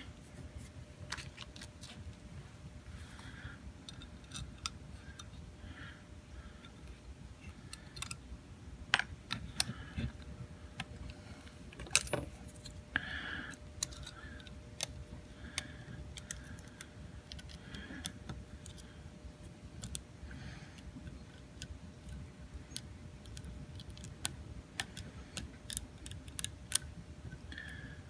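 Lock picking tools working the sliders of a Supra-C key safe lock: irregular sharp metallic clicks and light scraping.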